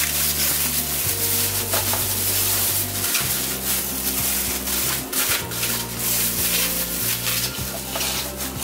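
Plastic zip bag crinkling and rustling in irregular bursts as daikon radish sticks are mixed with shiro-dashi inside it and tipped into a plastic container, over background music of long low notes.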